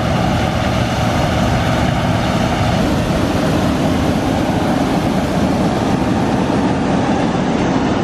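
John Deere 9870 STS combine running steadily as it harvests soybeans with its draper header: a loud, constant mechanical noise.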